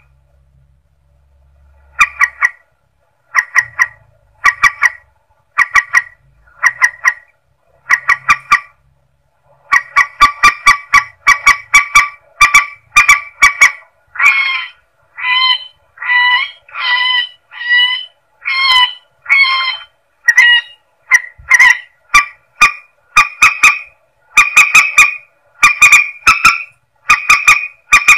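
Mandar sawah, a rail, giving loud honking, rapidly pulsed calls: the lure call used to draw the birds in. The calls come about once a second at first, then run together in a fast continuous series from about a third of the way in, with longer notes that rise and fall in pitch in the middle.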